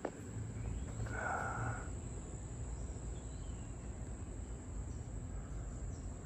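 Outdoor yard ambience: a steady high-pitched insect drone over a low rumble, with one short higher sound about a second in.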